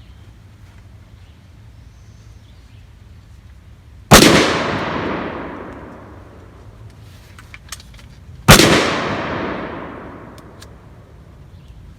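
Two single shots from a PSA AR pistol in .223/5.56, about four and a half seconds apart, each very loud and ringing out for about two seconds afterwards.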